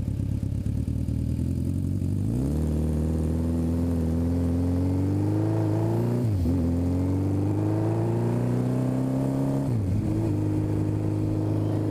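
Suzuki motorcycle engine accelerating through the gears. From about two seconds in its pitch climbs steadily, drops briefly at upshifts about six and a half and ten seconds in, then holds steady at cruising speed.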